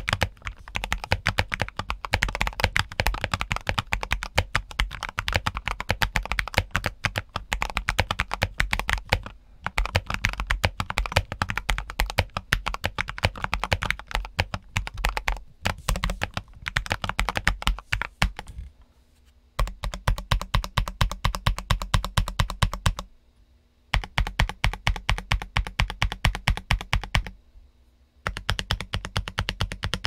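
Typing on a modded Redragon K617 Fizz mechanical keyboard with lubed Redragon Red linear switches, foam between plate and PCB, PE foam and MT3-profile ABS keycaps: a fast, even run of keystrokes, broken by a few short pauses.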